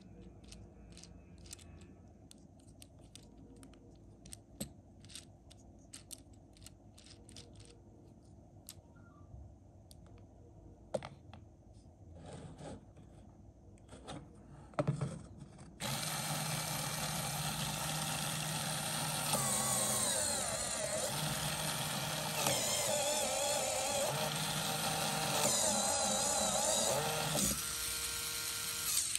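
Scattered light plastic clicks and taps from handling a LEGO Technic model. About halfway through, the model's LEGO electric motor starts and runs the gear train and limited slip differential with a loud steady whirr, its pitch dipping and recovering several times.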